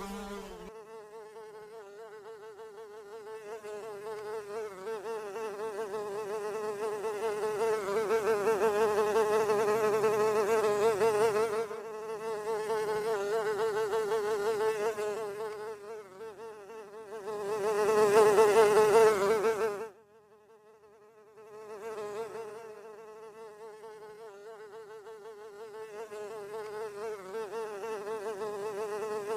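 Housefly buzzing in flight, a steady drone that swells louder and fades as the fly moves nearer and farther. It breaks off sharply about twenty seconds in, then starts again and grows louder.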